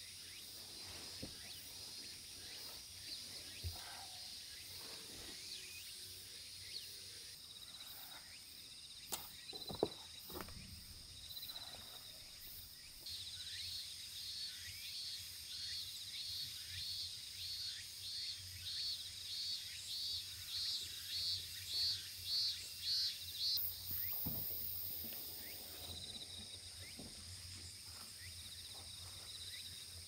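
Summer insects: a steady high drone, with a cicada calling in pulsing phrases about one and a half a second apart for about ten seconds from near the middle, growing louder and then stopping. A few light knocks and clicks from gear being handled.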